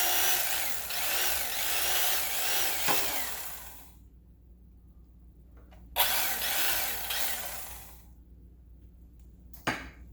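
Electric carving knife running in two bursts, about four seconds and then two seconds, its buzz wavering in pitch as the blades saw through roasted chicken breast. A sharp click comes near the middle and again near the end.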